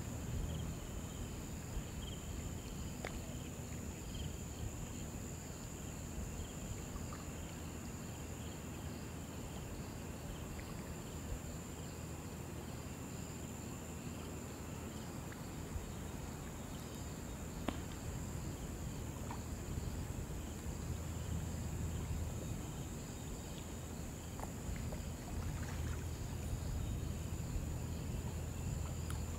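Insects calling: a steady high-pitched buzz, with a softer rhythmic chirping repeating beneath it, over a low steady rumble.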